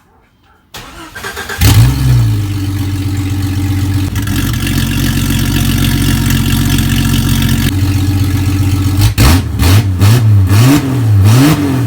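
Jeep Grand Cherokee engine cranked and started, catching about two seconds in and settling into a steady idle. Near the end it is revved in several quick blips, through the exhaust with its failing muffler that makes a rattle when driven.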